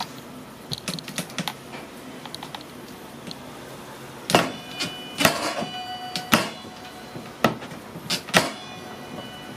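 Wardrobe door being shut against a magnetic latch and pulled open again: a few light clicks, then from about four seconds in a series of about five sharp clacks roughly a second apart, some with a brief ring, as the door snaps closed on the magnet.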